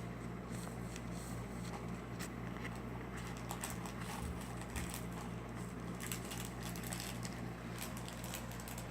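Faint, scattered rustles and small clicks of squishy toys and their plastic packaging being handled, a little busier in the second half, over a steady low hum.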